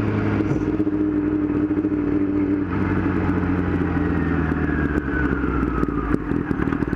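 Yamaha R6 sport bike's inline-four engine running under way, heard from the rider's helmet. The engine note changes about two and a half seconds in, then the revs fall slowly over the next few seconds.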